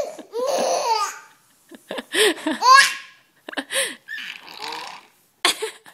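Six-month-old baby laughing in several separate bursts, with short quiet gaps between them, set off by a teddy bear falling on him.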